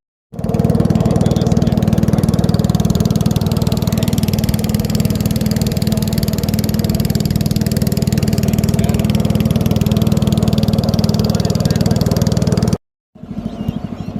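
Engine, most likely a small boat's outboard motor, running at a steady speed with a constant hum. The sound cuts out completely for a moment twice, right at the start and near the end.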